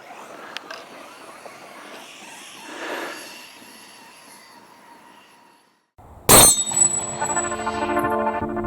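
Faint outdoor field noise for about six seconds, then a short gap and music that begins with a sharp crash and continues with held chords.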